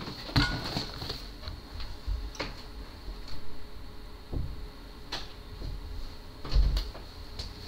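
Scattered knocks and clicks with a few low thumps near the end, over a faint steady hum in a small room.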